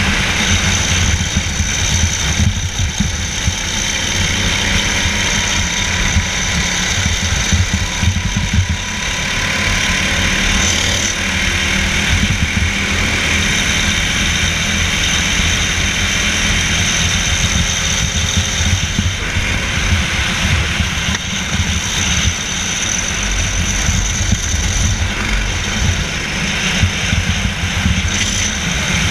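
Go-kart engine running hard at racing speed, heard onboard from the kart, with a continuous dense rumble and a faint thin whine over it.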